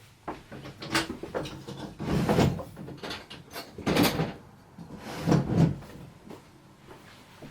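A run of knocks, scrapes and rustles from objects being handled and moved, with four louder ones spread about a second and a half apart.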